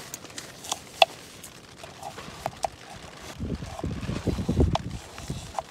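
Small knife slicing a raw potato on a wooden chopping board, with sharp knocks as the blade meets the board, the loudest about a second in. In the second half there is a low, gusty rumble of strong wind on the microphone.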